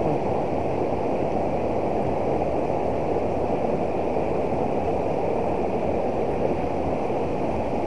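Fast-flowing river rushing steadily over a low weir and around rocks.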